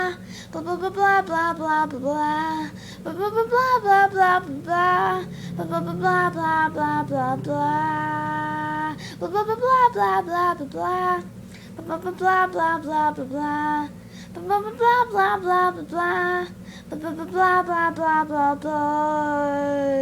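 A child singing a high, wavering tune in short phrases, holding one long note about eight seconds in, over a faint steady low hum.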